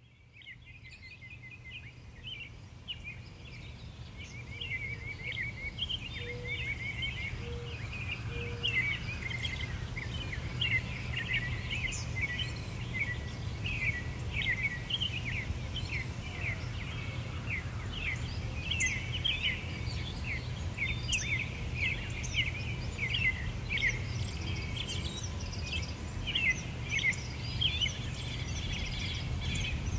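Many small birds chirping and twittering in a dense chorus over a steady low rumble of outdoor background noise, fading in over the first few seconds.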